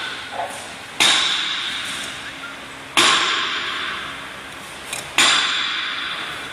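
Three sharp metallic clangs, evenly spaced about two seconds apart, each ringing out and slowly fading.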